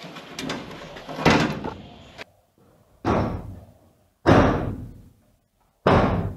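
Renault Estafette van's metal rear tailgate being slammed shut four times, a heavy bang each time that dies away quickly, the last two loudest. The latch catches and locks the tailgate shut.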